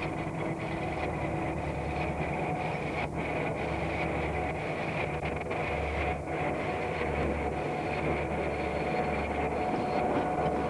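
Diesel locomotive approaching and passing close by, its engine running with a low steady hum that grows gradually louder as it nears.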